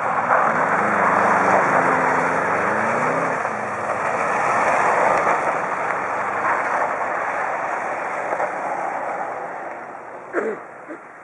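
Car engines revving as cars slide around an ice circuit, the engine note rising and falling over the first few seconds, then fading as the car pulls away toward the end.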